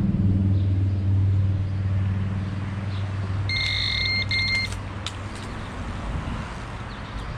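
A road vehicle's engine hum fades away over the first few seconds. About three and a half seconds in, a carp bite alarm gives a quick run of electronic beeps lasting about a second, signalling a fish pulling at the line, followed by a few sharp clicks.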